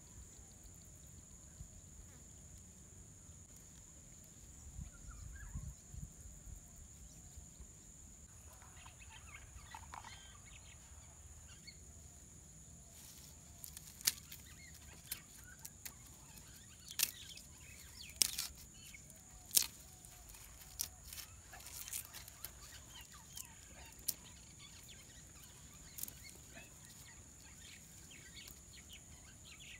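Quiet outdoor ambience with a steady high insect drone and chickens clucking faintly. From about a third of the way in comes a scatter of sharp crackling clicks as dry garlic skins are peeled by hand.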